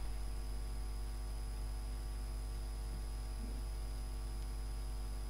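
Steady electrical hum with a faint high whine above it, unchanging throughout.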